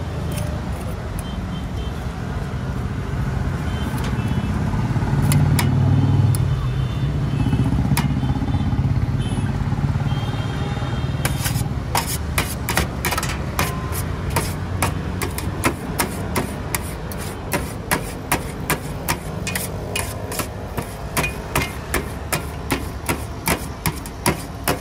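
Road traffic rumbling past, then from about halfway a metal spatula chopping paneer shawarma shavings against a steel tray in sharp, regular clacks about three times a second.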